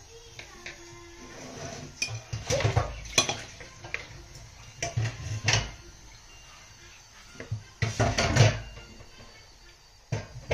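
Metal kitchen utensils clinking and clattering against a pan, in four short bursts of clanks a couple of seconds apart.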